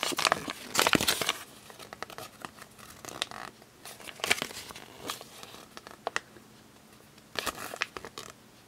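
Plastic blind-bag wrapper and its paper checklist leaflet crinkling as they are handled and unfolded, in irregular crackly bursts that are densest in the first second or so, then come in short spells.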